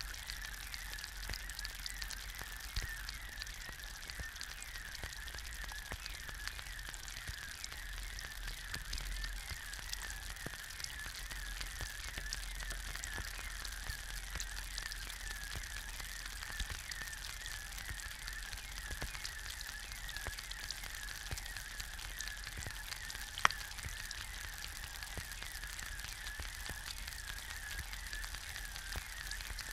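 An egg frying in a pan: a steady sizzle of dense fine crackles over a continuous high, wavering squeak. One sharp loud pop comes about three-quarters of the way through.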